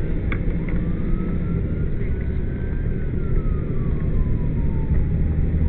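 Steady low engine and road drone of a moving vehicle, with an emergency siren on a slow wail above it, rising, then falling, then starting to rise again near the end. A couple of brief clicks come just after the start.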